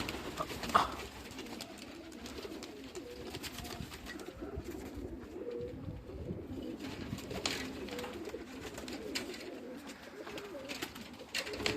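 Domestic pigeons cooing continuously in a low murmur, with one short click about a second in.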